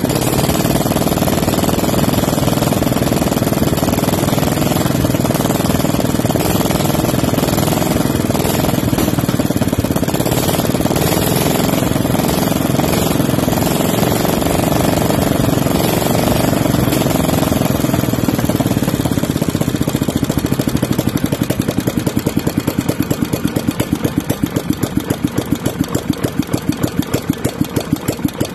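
Restored Bernard W 810 stationary engine running steadily and loudly. About two-thirds of the way through it slows down, and its separate firing beats become distinct as it settles toward idle.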